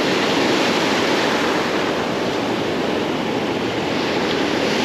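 Ocean surf washing steadily on the beach, a continuous rushing noise, with some wind on the microphone.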